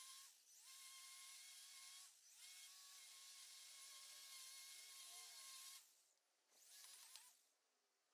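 Ryobi 40V battery string trimmer's electric motor whining faintly at a steady pitch while edging. The whine drops away briefly about half a second and two seconds in, then for longer around six seconds and again near the end, each time spinning back up as the trigger is squeezed again.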